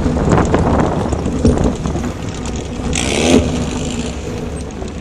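Air-cooled Volkswagen Baja Bug engine running hard off-road, with many short knocks and rattles and a burst of hiss about three seconds in.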